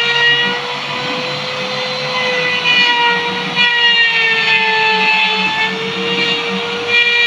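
CNC router spindle running with a steady high whine, its pitch sagging briefly about four to five seconds in, as under cutting load.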